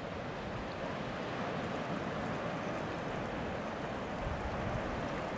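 Ocean surf washing onto a sandy beach: a steady, even rushing noise with no breaks.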